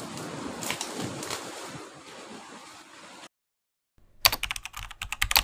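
Surf washing against the rocks with wind on the microphone, cut off abruptly about three seconds in. After a short silence comes a fast, loud run of computer-keyboard typing clicks: a typing sound effect.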